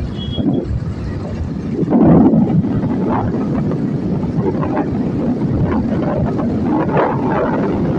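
Wind buffeting the microphone and road and traffic noise while riding at speed: a loud, steady rumble that swells about two seconds in.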